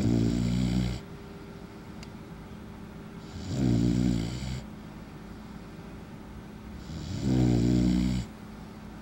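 Puppy snoring in its sleep: three snores, each about a second long and roughly three and a half seconds apart, with a low pitched rasp and a hiss on each breath.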